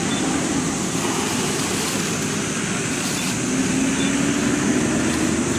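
Steady road-traffic noise with a vehicle engine's low hum that grows louder about three and a half seconds in.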